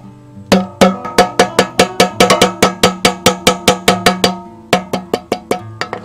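Rapid hammer blows on a metal milk-powder tin and its hinge, about five a second, each with a short metallic ring. The blows thin out to a few lighter, spaced strikes in the last second and a half.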